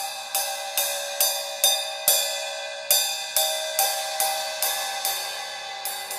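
Open 13¼-inch Zildjian K Custom Hybrid hi-hats struck with a drumstick at about two strokes a second, each hit ringing into the next as a bright wash. The stick works in from the edge toward the inner part of the top cymbal, so the tone shifts from stroke to stroke.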